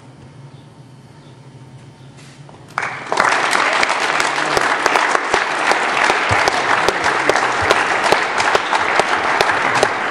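Audience applause, breaking out suddenly about three seconds in and going on loud and steady.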